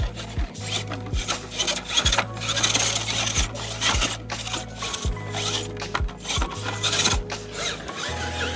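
Radio-controlled rock crawler working over rock: an irregular run of scraping, rasping and clicking as its tires and chassis grind against the stone.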